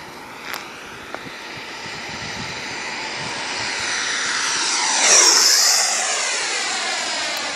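Freewing F-16 RC jet's high-blade-count electric ducted fan, a turbine-like whine, making a low pass: it grows louder, is loudest about five seconds in with a high whine, then fades as the jet moves away.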